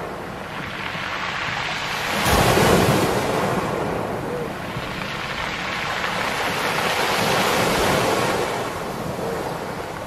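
Small waves breaking on a beach of round black pebbles (mongdol), the water washing up and drawing back so the stones roll against each other. The loudest surge comes about two and a half seconds in, then a second long wash swells and fades through the second half.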